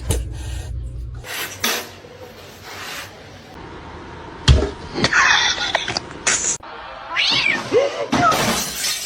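Cat meowing and yowling in several drawn-out calls that slide up and down in pitch. A sharp knock about four and a half seconds in.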